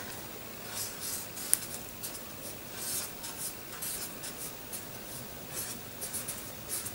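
Pen writing joined-up letters on a sheet of paper: a run of short, irregular scratching strokes, with one sharp click about one and a half seconds in.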